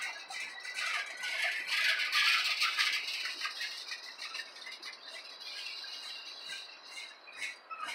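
Tank cars of a CSX manifest freight train rolling past, with wheels and trucks rattling and clattering on the rails. Louder for the first three seconds, then easing.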